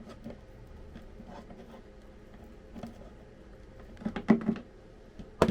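Scattered light taps and knocks of parts being handled, with a cluster of louder knocks about four seconds in and a sharp click near the end.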